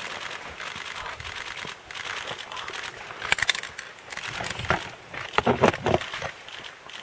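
Camera shutters clicking in quick bursts, with leaves and branches rustling close by. The densest, loudest crackle comes near the end.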